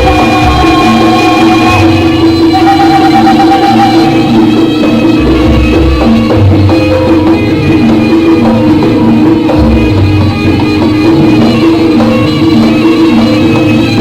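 Loud live jaranan music from a Javanese gamelan-style ensemble: held pitched tones over a repeating drum pattern, with a wavering melody line above them for the first few seconds.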